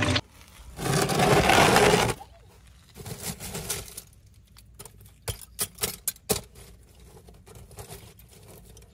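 Hand stirring through a pile of shredded plastic toy and cardboard pieces: light crinkling and clattering of the fragments, with several sharp clicks in the middle. Near the start there is a loud rushing noise about a second and a half long.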